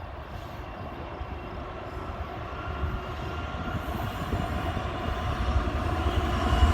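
BNSF freight train's diesel locomotives approaching: a low rumble that grows steadily louder.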